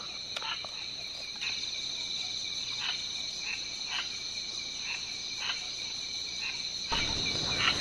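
Night chorus of crickets and other insects: a steady, high-pitched trilling, with a few faint clicks over it.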